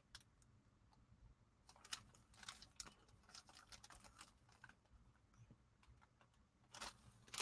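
Faint, scattered crinkles and light clicks from a clear plastic zip bag of chevron amethyst pieces being turned in the hand, the stones shifting against each other inside it.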